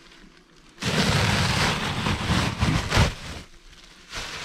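A rough crackling rustle of loose attic insulation being handled, starting about a second in, lasting about two and a half seconds, then dying away.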